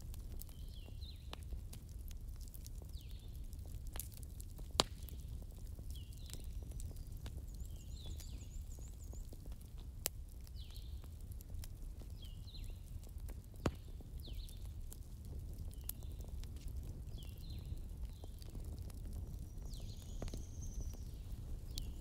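Wood campfire crackling with a few sharp pops, over a low steady rumble. A small bird calls with short chirps over and over, about once a second.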